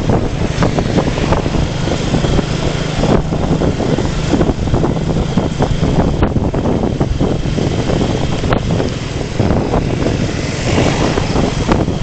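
Wind buffeting the microphone of a camera on a moving motorcycle, over the motorcycle's low, steady engine hum, which is clearest in the first few seconds.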